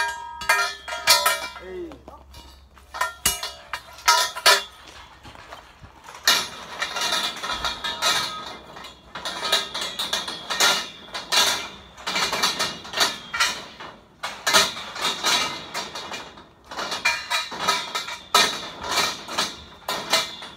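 Steel scaffolding parts clanking and ringing as they are handled during dismantling: a few separate metallic clinks at first, then dense jangling clatter in bursts about once a second.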